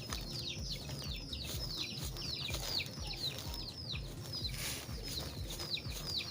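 Chickens peeping: many short, high calls, each falling in pitch, overlapping several times a second, with a brief rustle about two-thirds of the way through.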